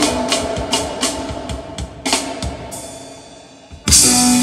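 Reggae band playing live, with the drum kit prominent. The music thins out and gets quieter, then the full band comes back in loud just before the end.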